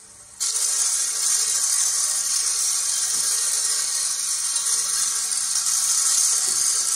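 A steady, even hiss, mostly high-pitched, coming in about half a second in.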